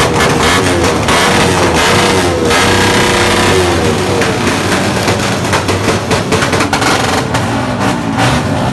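Loud modified small motorcycle engine revved hard through an open exhaust, its pitch rising and falling with the throttle. Sharp popping from the exhaust, with flame coming out, crackles in and grows more frequent near the end.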